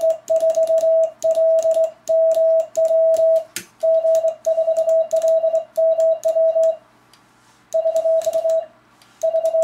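Morse code sent by hand on a Kent dual paddle used as a cootie (sideswiper) key: a steady mid-pitched sidetone beeping in dits and dahs, with the paddle contacts clicking along. It stops for about a second near seven seconds in, then resumes.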